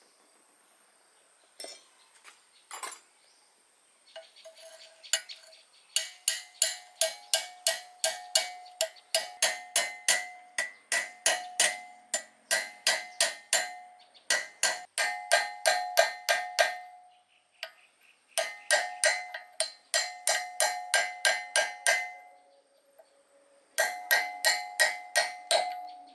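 Hammer striking metal: a few scattered knocks, then runs of ringing blows, about three a second, with two short pauses.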